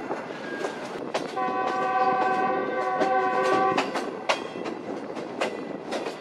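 Locomotive horn of the GEU-40 hauling the train, heard from aboard the moving coaches: one steady chord-like blast starting about a second in and lasting about two and a half seconds. The wheels click over rail joints throughout.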